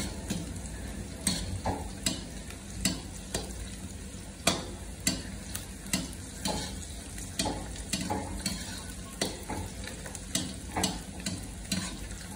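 Sliced onions frying in oil in a large black karahi, sizzling steadily while being browned, with a long metal ladle scraping and knocking against the pan about twice a second as they are stirred.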